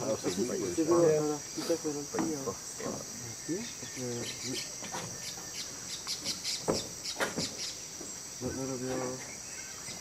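Steady high-pitched drone of rainforest insects, with low murmured human voices near the start and again near the end, and a scatter of short sharp chirps in the middle.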